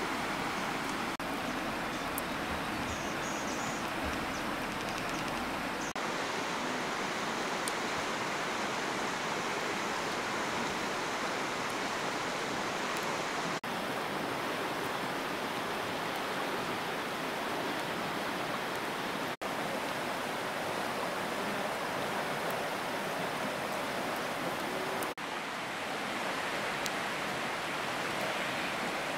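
A steady rush of flowing water, broken by a few abrupt cuts.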